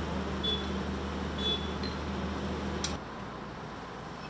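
Steady low hum of a heavy machine's engine idling, with a few faint short high squeaks; the hum cuts off suddenly about three seconds in, leaving quieter background noise.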